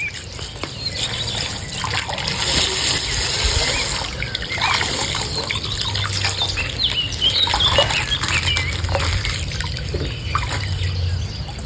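Coloured water splashing and trickling from a burst plastic ice-pack bag as it is squeezed and handled, with crackles of the plastic.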